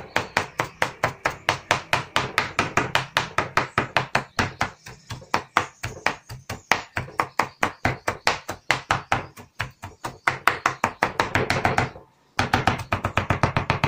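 A kitchen knife rapidly chopping red onion fine on a plastic cutting board: quick, even blade strikes about six a second, with a short pause about twelve seconds in.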